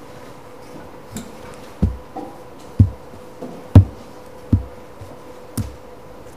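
A monstrance being handled on the altar close to the microphone: about six irregular dull knocks and thumps, roughly one a second, the loudest near the middle. A faint steady hum runs underneath.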